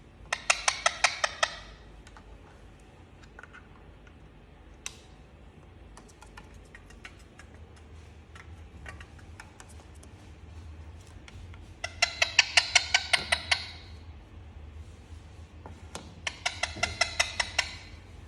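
Indian ringneck parakeet giving three bursts of rapid, sharp repeated calls, about a dozen quick notes each: near the start, about twelve seconds in, and again near the end. Faint scattered clicks between the bursts.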